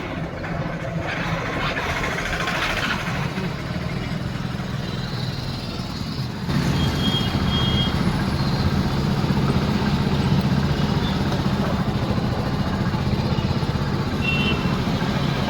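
Hero Splendor Plus BS6's single-cylinder engine running steadily, getting louder about six and a half seconds in, with a few short high beeps over it.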